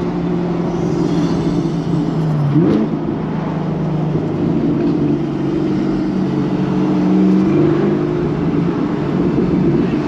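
Camaro ZL1 1LE's supercharged V8 running at a steady cruise, with a brief rise in revs about two and a half seconds in.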